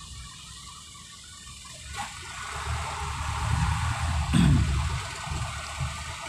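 Low rumble of traffic and engine noise heard from inside a slow-moving vehicle, fairly quiet at first and building up about two seconds in.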